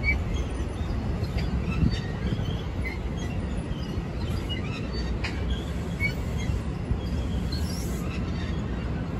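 NJ Transit double-deck MultiLevel passenger coaches rolling past on the rails. A steady low rumble from the wheels, with scattered brief high squeaks and a sharp click about five seconds in.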